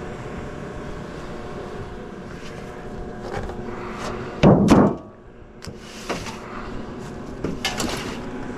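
Sheet metal from a gas heater being pulled apart and handled: a loud metallic clatter about halfway through, then a few sharper knocks and clicks near the end, over a steady hum.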